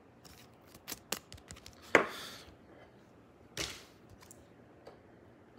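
Hard plastic card holder being handled: a run of small clicks, then two sharper clacks with a short scrape after each, about two seconds and three and a half seconds in, the first the loudest.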